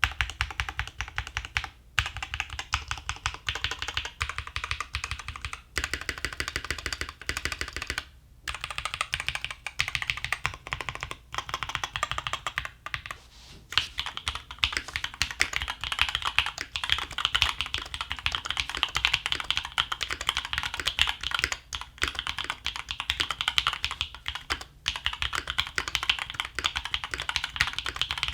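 Fast typing on an Odin Gaming Nova65 mechanical keyboard with Tecsee linear switches: a dense, steady clatter of keystrokes, broken by brief pauses every few seconds.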